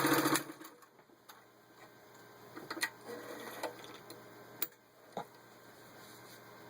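Singer 66-8 sewing machine stitching through six layers of denim, stopping about half a second in. Then a few scattered light clicks and taps.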